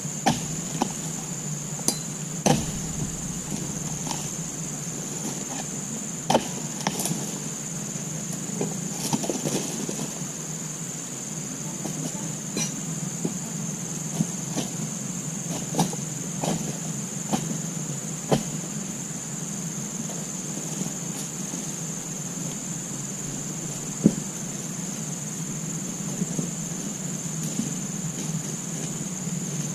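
Irregular sharp knocks every few seconds from a long-poled harvesting blade striking into the frond bases and fruit bunch of a young oil palm. A steady high insect drone runs underneath.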